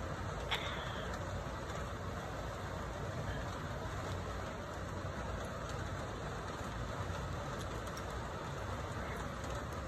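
Steady outdoor background noise, a constant hum and hiss, with one short high chirp about half a second in.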